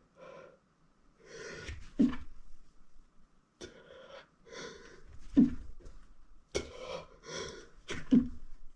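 A man's breathing as he fights an oncoming sneeze: three rounds of drawn-in, hitching breaths, each ending in a short, sharp catch in the throat.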